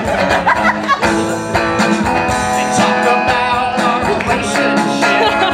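Live song: a strummed electric guitar with a voice singing over it.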